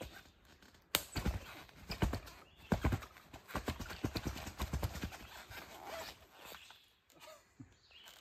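Heavy motocross boots stepping, stamping and scuffing on a soft dirt trail and dry leaves: a run of irregular thuds and scrapes that starts with a sharp knock about a second in and dies down after about six seconds.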